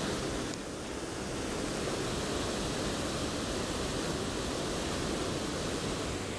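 Steady rushing of water at a river weir running high after rain, an even hiss with no distinct events.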